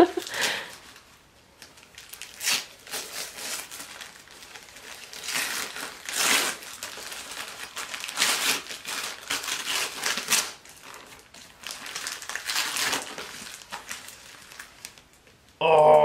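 Christmas wrapping paper crinkling and tearing as a present is unwrapped by hand, in irregular rustles and rips.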